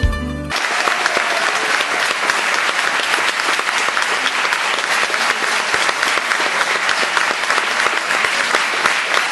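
Roomful of people applauding, a dense, steady clapping. Plucked-string music cuts off about half a second in, just as the clapping starts.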